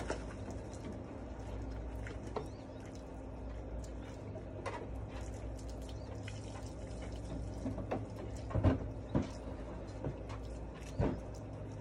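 Steady hiss of water running from a garden hose and splashing during a dog's bath, with a few short knocks in the second half.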